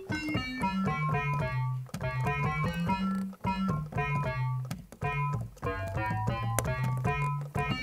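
Homemade ATtiny85-based FM synthesizer, with modulation and operator feedback turned right up and an envelope on the notes, playing a fast run of short notes rich in overtones. Lower notes underneath change pitch about once a second.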